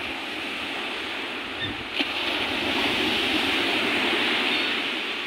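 Surf breaking and washing up on a sandy beach: a steady rushing wash that swells louder about two seconds in and eases off near the end.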